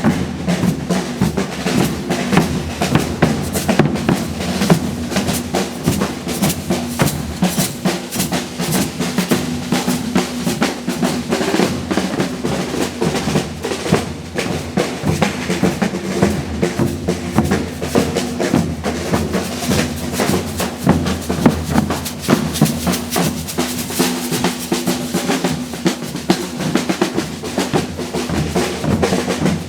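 Brazilian percussion group drumming live: a busy, steady groove of bass drums and snares that carries on without a break.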